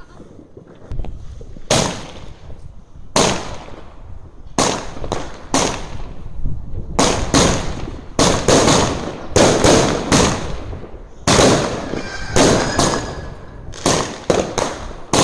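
Fireworks exploding: sharp bangs, each with a short echoing tail, a few seconds apart at first, then coming in quick clusters from about seven seconds in.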